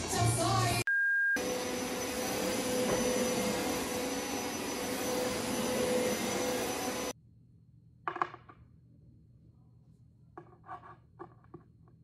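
An upright carpet cleaner runs with a steady motor sound and a constant whine, then cuts off abruptly about seven seconds in. Before it comes a brief snatch of pop music and a short beep. After it, a few short knocks and clicks from flat-pack furniture parts being handled.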